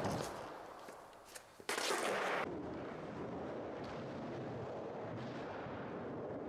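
Skateboard on concrete: a sudden loud burst of board and wheel noise about two seconds in, then the steady noise of the wheels rolling over the concrete bowl.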